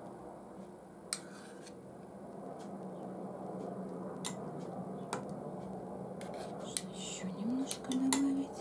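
Metal spoon clinking and scraping against a bowl and a glass while soft curd cream is spooned onto a dessert: a handful of sharp, separate clinks over a steady low hum.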